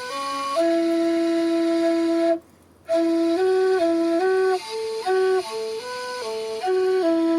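A flute-type wind instrument playing a simple melody live: a long held note, a breath pause about two and a half seconds in, then a run of short notes stepping up and down, ending on another long held note.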